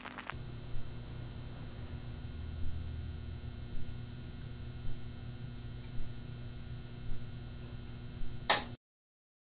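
Steady low electrical hum with a soft click about once a second, cutting off abruptly into silence near the end.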